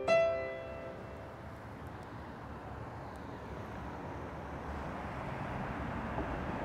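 A last piano note rings and fades, leaving a steady hum of distant city traffic that slowly grows louder.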